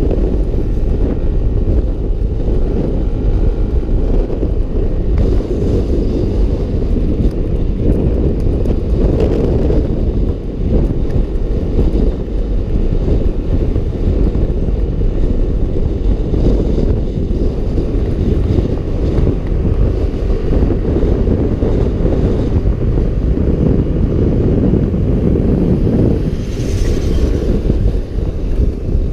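Wind buffeting the camera microphone on a Yamaha NMAX scooter riding at speed, a steady low rushing. About 26 seconds in, a brief brighter swell of noise as another motorcycle comes alongside.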